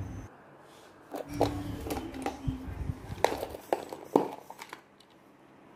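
A handful of sharp hard-plastic clicks and knocks, from about a second in until past the middle, as a plastic Majorette tyre-shaped toy car case and die-cast toy cars are handled.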